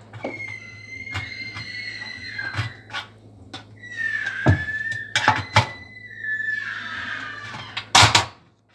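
Metal squealing in long, slightly wavering high-pitched squeaks, broken by several sharp knocks, the loudest of them near the end, over a steady low hum.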